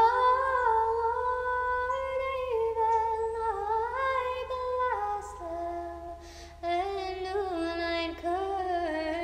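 A woman's solo voice singing the slow refrain of an Orthodox prayer chant without accompaniment. It holds long notes that step between a few pitches, with a brief break about six and a half seconds in.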